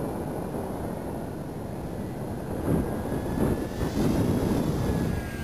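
Radio-controlled model airplane's engine droning as it flies overhead, with a faint whine that slides slightly down in pitch in the second half, under heavy wind buffeting on the microphone.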